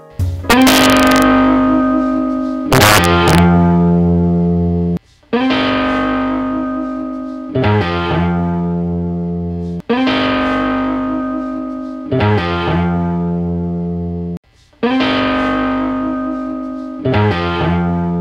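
Background music: guitar chords, each struck and left to ring, about one every two and a half seconds.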